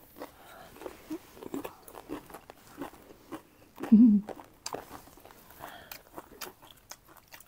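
Close-miked chewing and crunching of food, made up of many irregular crisp crunches. A short voiced sound comes about four seconds in.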